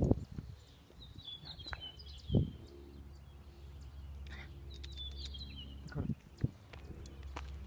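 Birds chirping outdoors: short high chirps about a second in and again about five seconds in, over a low steady rumble. A few dull thumps stand out, the loudest about two and a half seconds in.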